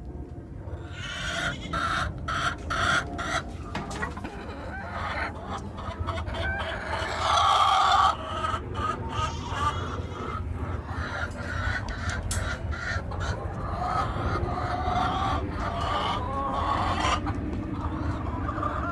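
Domestic hens clucking and squawking, with one loud drawn-out call about seven seconds in. It is the hens' complaining as their eggs are taken.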